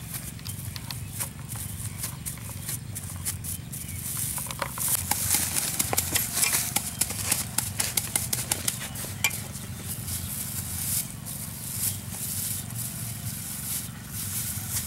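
Clear plastic bag crinkling and a cleaver pressing and tapping on a wooden chopping board as a banana is flattened inside the plastic. A dense run of quick crackles and clicks comes in the middle, over a steady low rumble.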